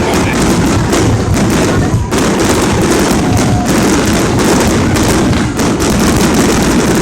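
Fireworks going off in rapid succession: a dense, continuous barrage of bangs and crackling, dipping briefly about two seconds in.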